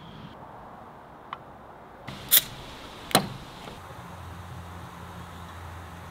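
Two sharp clicks about a second apart, then a fizzy drink poured from a bottle into a glass in a steady stream, foaming as it fills; the pour stops at the end.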